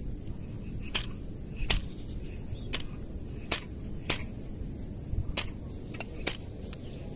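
Sharp single clicks and snaps, about nine at uneven intervals, from a baitcasting rod, reel and line being worked by hand to free a lure snagged on submerged wood, over a low outdoor rumble.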